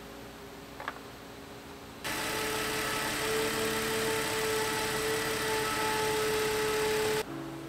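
Porsche Cayenne VR6 engine idling steadily, with a steady whine above the engine note. The sound jumps louder about two seconds in and drops back suddenly near the end.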